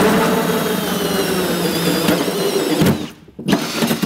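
Cordless drill turning a 4-inch Starrett hole saw on slow speed, cutting through an aluminum truck bed with a steady motor whine and grinding. The drill stops about three seconds in, then runs in two short bursts near the end.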